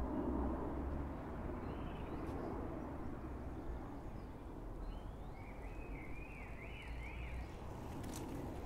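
Street ambience: a steady low rumble of distant traffic with birds calling over it, short rising chirps every couple of seconds and a quick warbling phrase about halfway through.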